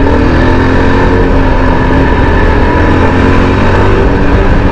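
Yezdi Adventure motorcycle's single-cylinder engine running steadily under way, at a fairly constant pitch, with a heavy low rumble of wind on the microphone.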